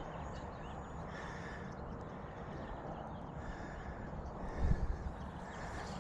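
Park ambience of birds calling over a steady outdoor hiss, with a brief low thump about four and a half seconds in.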